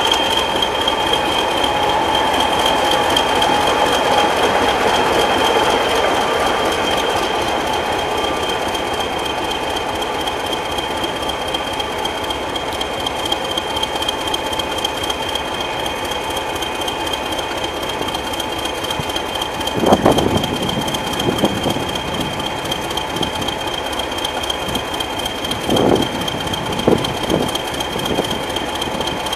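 Diesel train running, a steady mechanical noise with a constant high whine, and a few sharp knocks about two-thirds of the way in and again near the end.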